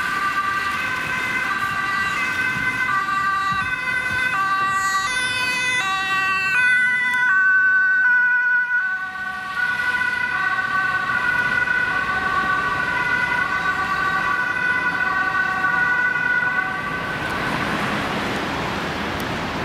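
Ambulance two-tone siren alternating steadily between two pitches. Near the end the siren fades and a broad rush of road traffic takes over.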